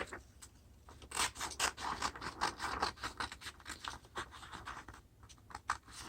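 Scissors cutting through a sheet of paper: a string of short, irregular snips and scratchy paper sounds, several a second, starting about a second in.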